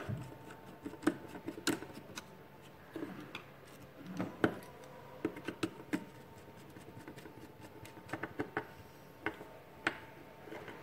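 Irregular small clicks and light knocks of a plastic contactor, a screwdriver and stiff wires being handled on a tabletop while a wire is screwed into the contactor's auxiliary-contact terminal.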